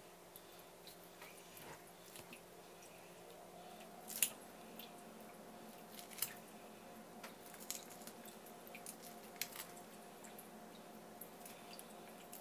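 Metal spoon scraping raw tuna meat off the bones of a tuna collar: soft, wet, irregular scrapes with sharper clicks now and then, the loudest about four seconds in and again about six seconds in. A faint steady hum runs underneath.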